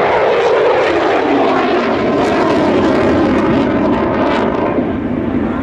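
Mitsubishi F-2 fighter's single F110 turbofan engine, heard loud and steady as the jet flies past, its pitch falling throughout.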